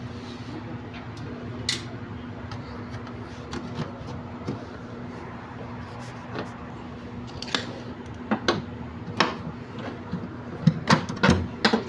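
Clicks and knocks of tools and parts being handled during a washing-machine repair, a few at first, then coming quickly in the last few seconds, over a steady low hum.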